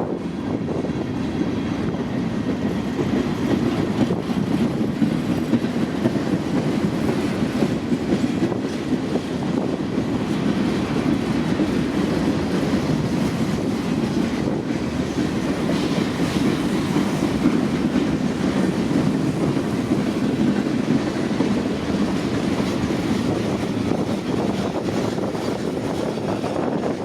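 Freight train cars rolling past, a steady rumble of steel wheels on rail with clickety-clack over the rail joints.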